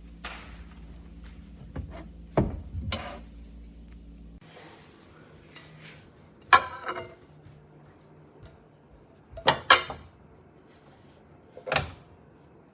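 Cookware and kitchen utensils clinking and clanking against ceramic nonstick pots: about six short metallic knocks in small clusters, each ringing briefly. A steady low hum underneath stops a few seconds in.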